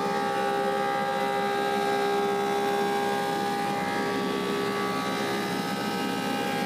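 Woodmaster 725 planer running steadily: an even machine hum with several held tones over a rushing noise, unchanging throughout.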